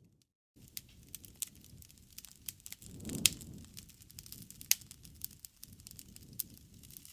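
Wood bonfire crackling: a dense scatter of small ticks with two sharp, loud pops a little past the middle and a low swell of flame noise just before the first. The sound drops out entirely for about half a second right at the start.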